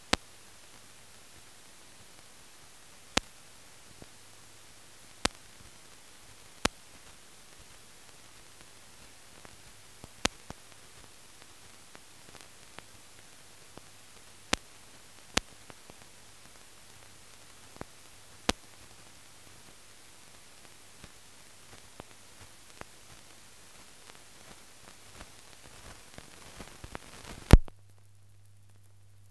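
Steady hiss from the blank soundtrack of a silent newsreel film transfer, with a faint low hum and sharp clicks and pops scattered at irregular intervals. Near the end a loud pop sounds and the hiss drops away, leaving only the faint hum.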